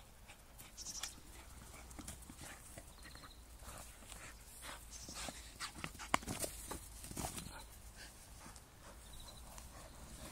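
An Entlebucher Mountain Dog mouthing and pushing a plastic frisbee on grass: faint, irregular clicks and scuffs of teeth and plastic, with one sharper click about six seconds in.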